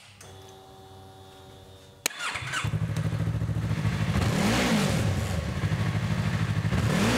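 Yamaha R3's parallel-twin engine through its stock factory exhaust: after a faint steady hum and a click, the engine starts about two and a half seconds in and idles, with two short blips of the throttle that rise and fall. On the stock exhaust it sounds subdued, almost inaudible.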